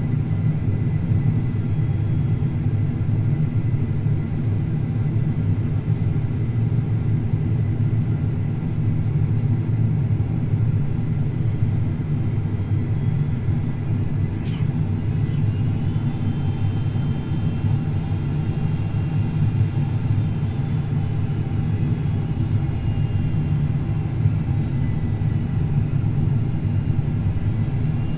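Boeing 767-400ER cabin noise on approach: the steady rumble of engines and rushing airflow heard from inside the cabin, with a faint steady whine above it and a single light click about halfway through.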